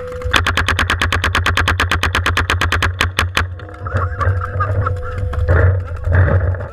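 Paintball marker firing a rapid string of shots, about a dozen a second for nearly three seconds, ending in a few slower single shots. Scattered single shots follow.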